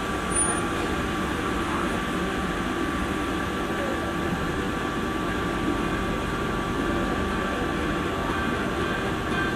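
Steady hum inside a Singapore MRT train carriage standing still: the car's air conditioning and electrical equipment, with a low rumble and a few faint, steady high tones.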